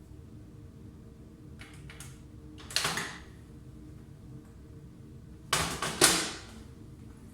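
Microwave oven with a steady low hum, and sharp mechanical clicks and clunks: faint clicks about two seconds in, one loud clunk about three seconds in, and a louder burst of several clunks about six seconds in.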